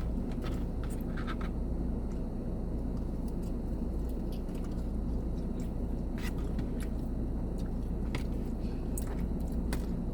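Eating sounds: utensils scraping and clicking against a takeout container as chicken crispers are cut up, with chewing, over a steady low hum.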